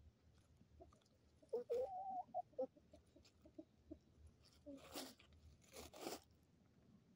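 A chicken gives a wavering cluck lasting about a second, a second and a half in, followed by a few short soft clucks. Near the end come two brief crunching rustles in the dry leaf litter as the chickens scratch and peck at scraps.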